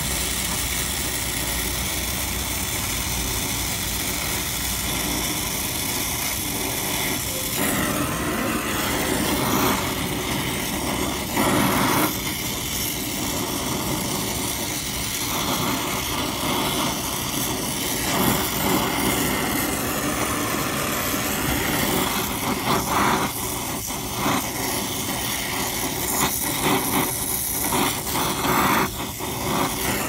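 Brazing torch flame hissing steadily on a copper joint of a new liquid-line filter drier, over a steady mechanical hum.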